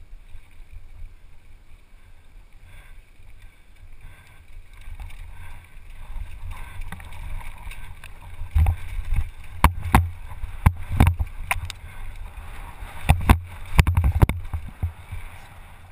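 Wind rumble on a helmet-mounted camera during a fast mountain bike descent on dirt singletrack, growing louder about six seconds in. From about halfway through come a run of sharp knocks and rattles as the bike crosses rougher, rockier ground.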